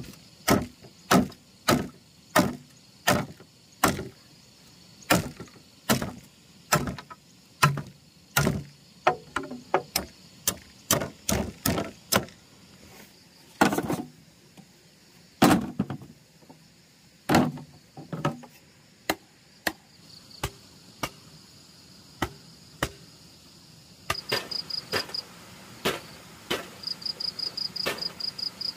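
A hand tool striking hard and repeatedly, at first about one blow every half second or so, then in uneven runs with pauses, turning to lighter, quicker taps near the end. Crickets trill underneath and chirp in quick pulses toward the end.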